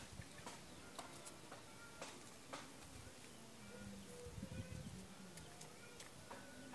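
Faint chicken sounds: a few soft, low, drawn-out calls in the middle and short, high peeping notes, with scattered small clicks.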